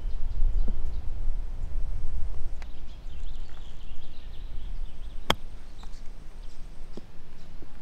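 A single crisp click about five seconds in as a golf club strikes the ball on a short chip shot, with birds chirping faintly around the middle.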